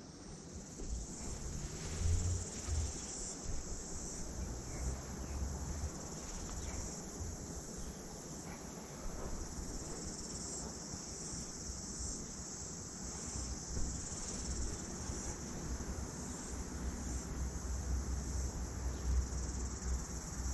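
A steady, high-pitched chorus of insects chirring without a break, with a low rumble that swells about two seconds in and again near the end.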